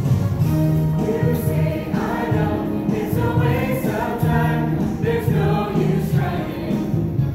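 A choir singing a song, with held, changing notes over a steady low part.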